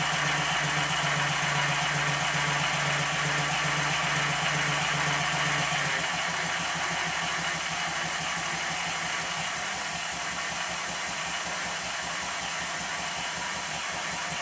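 Model 'Minnie'-type traction engine running on compressed air, its crankshaft, motion work and gearing turning, with a constant hiss from an air leak near the cylinder. About six seconds in, the steady hum gives way to a rapid, even beat and the sound drops a little.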